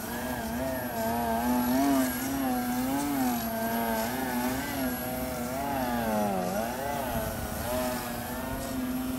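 Motor and propeller of a Yak 55 EPP foam RC airplane in flight, a steady whine whose pitch keeps rising and falling as the throttle changes and the plane passes, dipping lowest about six and a half seconds in.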